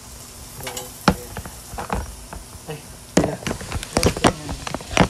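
Irregular sharp taps and knocks from hands handling the phone and things on the table, close to the microphone.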